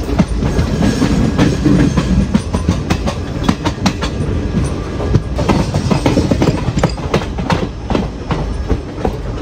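ICF passenger coach rolling along the track, its wheels clattering over rail joints with many irregular sharp clicks and knocks over a steady rumble, heard at the open coach doorway.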